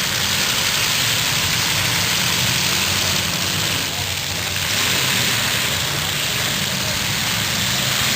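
Demolition derby cars' engines running, with steady low engine tones under a loud, even hiss that dips briefly about four seconds in.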